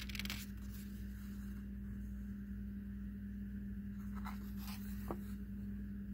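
Pages of a picture book being handled and turned: short paper rustles just after the start and again about four to five seconds in, over a steady low hum.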